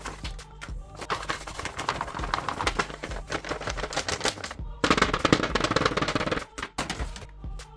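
Paper crinkling and rustling in quick crackles, louder and denser for about a second and a half near the five-second mark, over soft background music.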